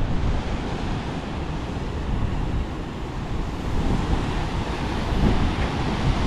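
Sea breeze blowing on the microphone in gusty low rumbles, over the steady wash of surf on the beach.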